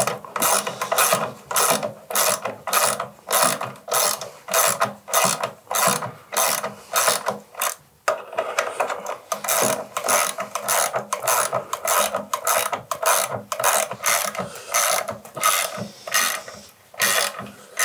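Ratchet wrench being worked back and forth in quick, regular strokes, a burst of clicks about three times a second, with a brief pause about eight seconds in.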